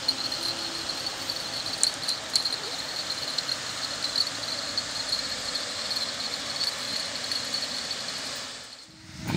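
Crickets chirring steadily at a high pitch over an even background rush, which cuts off shortly before the end.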